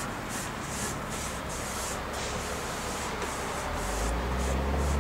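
Foam sponge brush scrubbing paint onto a canvas, a rhythmic scratchy rubbing of a few strokes a second. A low rumble comes in near the end and grows louder.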